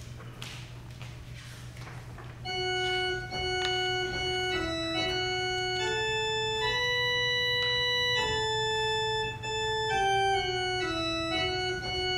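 Organ playing a slow melody of held notes, starting about two and a half seconds in: the introduction to the responsorial psalm refrain. A low steady hum lies underneath.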